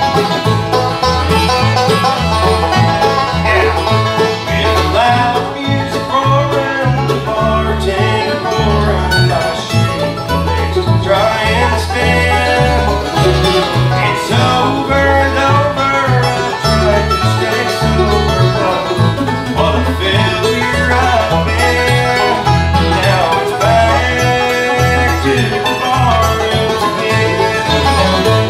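Bluegrass band playing an instrumental passage: banjo, mandolin, acoustic guitar and fiddle, over a steady bass line pulsing on the beat.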